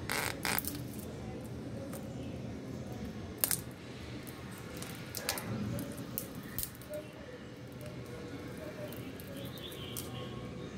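Knife blade cutting and scraping into a dry, already-hatched praying mantis egg case, giving a few scattered sharp clicks and crackles over a steady background hiss; the loudest click comes about three and a half seconds in.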